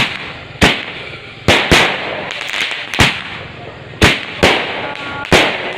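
Fireworks going off in a string of sharp bangs, about eight in under six seconds at uneven intervals, with a noisy hiss between them.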